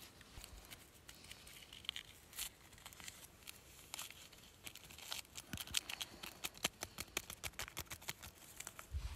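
A paper sachet torn open and its powder shaken into a metal mug: light rustling and tearing, then a quick run of small ticks and taps that thickens in the second half.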